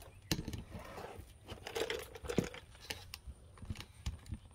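Scattered light knocks, clicks and rustles of handling noise as a phone camera is moved and repositioned.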